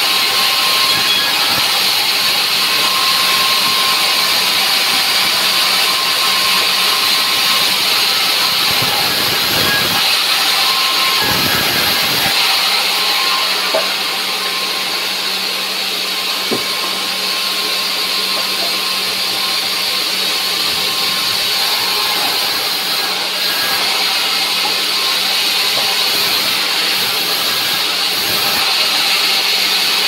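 Large sawmill band saw running and cutting dry timber: a loud, steady hiss of the blade over a low motor hum, with a few low thumps about ten seconds in.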